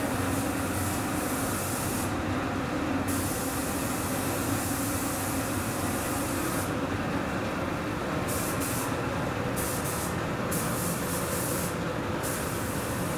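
Spray gun hissing as it atomises paint, fed by an Anest Iwata DPSM-90 paint pump, stopping and starting several times as the trigger is released and pulled. A steady machine hum runs underneath.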